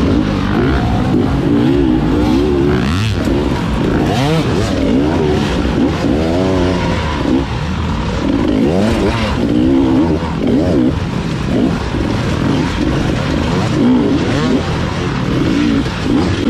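Enduro motorcycle engines revving up and down over and over, several at once, their pitch rising and falling in quick sweeps.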